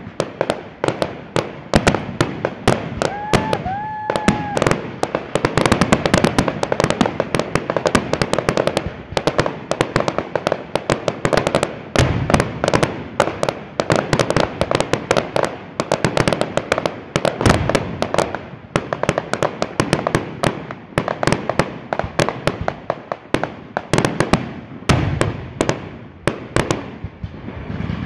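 Fireworks display: a dense, continuous run of rapid crackling reports from sparking stars and firecracker-like effects, with heavier booms of bursting aerial shells a few times, about twelve, seventeen and twenty-five seconds in.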